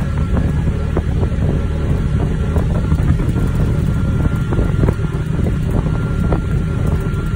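Wind buffeting the microphone of a camera travelling in a moving vehicle, a steady, loud low rumble with road and vehicle noise mixed in.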